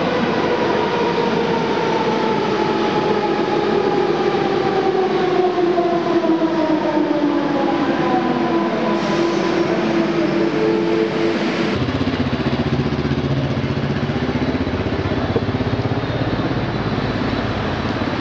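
Metro train's electric traction motors whining as the train slows, the whine falling steadily in pitch. It breaks off about twelve seconds in, giving way to a steady low rumble.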